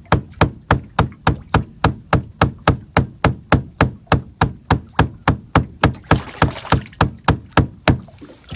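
Rapid, evenly spaced knocking, about three knocks a second, which stops shortly before the end; a short hiss breaks in about six seconds in.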